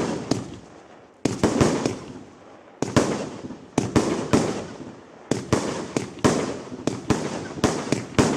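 Fireworks display: volleys of sharp bangs in quick clusters of two to four, about two dozen in all, each trailing off in an echoing rumble.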